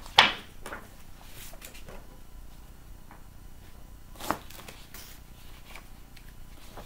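Paper leaflets and packaging being handled and leafed through: soft rustling, with a sharp louder rustle or knock just after the start and another a little after four seconds in.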